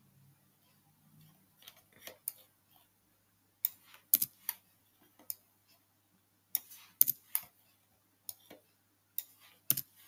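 Scattered sharp clicks from a computer mouse and keyboard, some in quick pairs, starting about two seconds in. They come as on-screen elements are selected and deleted.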